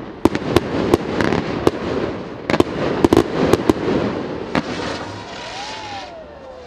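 Fireworks display: a rapid run of sharp bangs and crackles from bursting shells over a rumbling haze, then the bangs stop about four and a half seconds in and a high fizzing hiss carries on.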